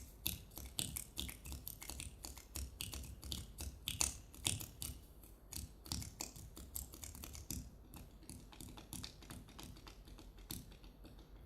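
Body percussion: a quick, irregular run of soft taps and clicks made on the body, several a second.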